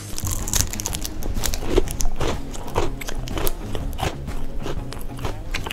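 Close-miked biting and chewing of a Kinder Bueno bar, with the crisp hazelnut-cream wafer cracking in many quick crunches.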